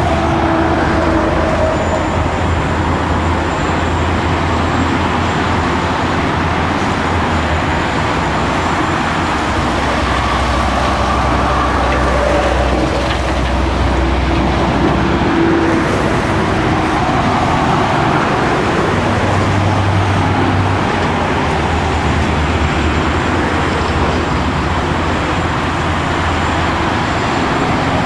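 Hitachi Zaxis 500LC excavator's diesel engine and hydraulics running under load through a dig, swing and dump into a dump truck, a loud steady din whose engine note shifts as the load changes.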